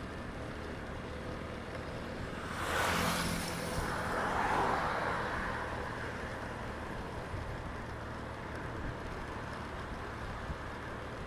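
Roadside city traffic: a steady low rumble of engines and tyres. About two and a half seconds in, a vehicle passes close, its tyre and engine noise swelling and then fading over the next few seconds.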